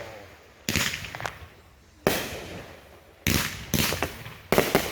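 Backyard consumer fireworks going off: about five sharp bangs, each trailing off over a second or so, the last two coming close together near the end.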